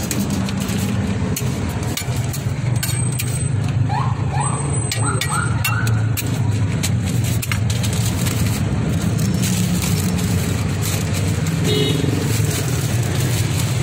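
An engine running steadily with a low, even hum, with scattered clicks and scrapes from a metal spatula working bread on a flat griddle.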